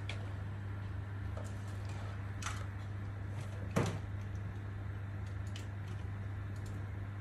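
A steady low hum, with a few light clicks and one sharper knock nearly four seconds in.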